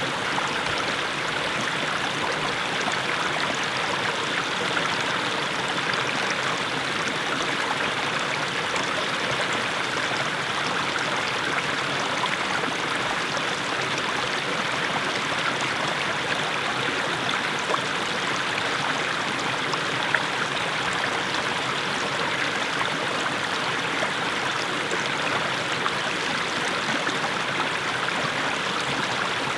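Small mountain stream splashing steadily over low steps of mossy stones: an even, unbroken rush of running water.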